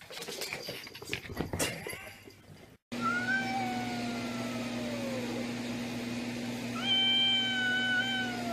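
A quick run of knocks and scuffles, then a cat's long yowls: two drawn-out calls, the first sliding down in pitch, the second held level before dropping, over a steady low hum.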